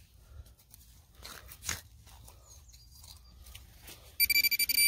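Spade cutting into soft ploughed soil, with a few faint crunches about a second and a half in. Near the end, a Minelab CTX 3030 metal detector gives a loud, broken, high-pitched beeping: the signal of a metal target in the dug soil.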